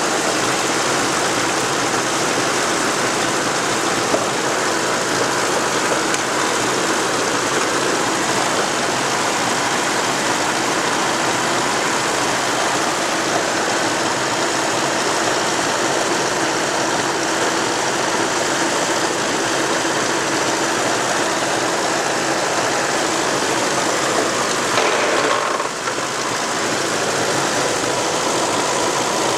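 Engines of a tandem pair of Ferguson TEA20 tractors running steadily while pulling a plough, with a brief dip in loudness near the end.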